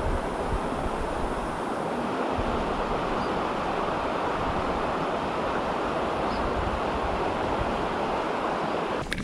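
Steady rush of creek water flowing over rocks, with some irregular low rumble from wind on the microphone.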